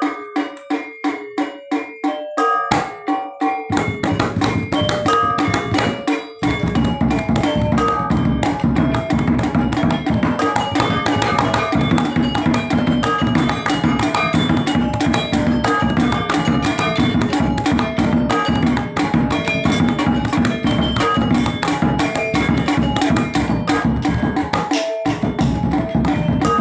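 Balinese gamelan playing music for the topeng gombrang mask dance: drums and struck bronze metallophones. It begins with spaced single strokes and ringing notes, then about six seconds in breaks into fast, dense ensemble playing, with a brief break near the end.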